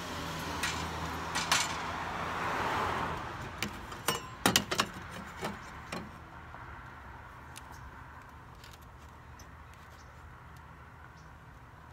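Handling clatter of a steel circular saw blade and a metal straightedge being set down and positioned on a plastic truck-bed liner: scattered clinks, then a quick cluster of sharp clacks about four seconds in. After that only faint light ticks as the blade is marked with a pen.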